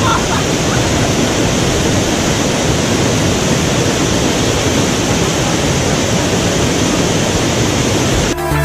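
Loud, steady rush of a waterfall pouring over rocks. Music cuts in suddenly just before the end.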